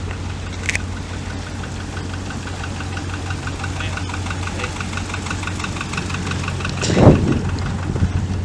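Boat engine running steadily with a low hum and a fast, regular ticking over it, and one loud thump about seven seconds in.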